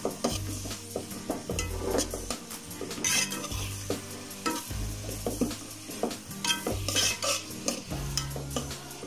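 Perforated metal spoon stirring sliced onions, green chillies and ginger-garlic frying in oil in a metal pot: repeated scrapes and clicks of the spoon against the pot over a soft sizzle, as the onions are sautéed.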